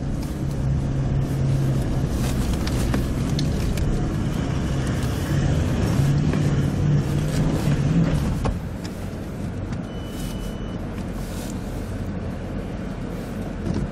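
Off-road vehicle's engine running under load on a hill climb. It is louder for the first eight seconds or so, then quieter and steadier.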